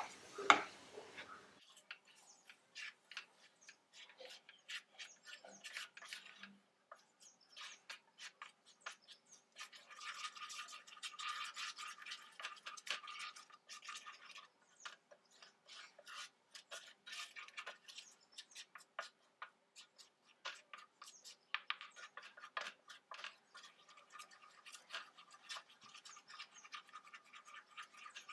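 Wooden spatula stirring and scraping a thick, wet milk-powder mixture around a non-stick frying pan: irregular soft scrapes and ticks, with one sharp knock of the spatula about half a second in.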